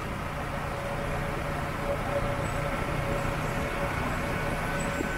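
Motorbike ride through city traffic: a steady low engine hum with road and wind noise.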